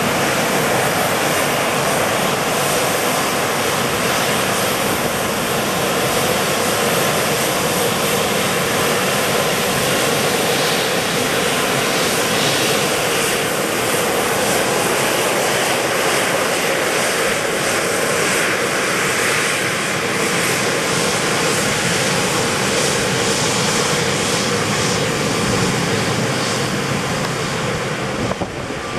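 Embraer E-Jet airliner's twin turbofan engines running at taxi power: a steady loud rush with a faint whine. It drops away shortly before the end.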